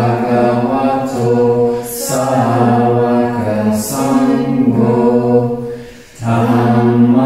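Buddhist chanting in Pali by low voices on long held notes, with hissing 's' sounds between phrases and a brief breath pause about a second before the end.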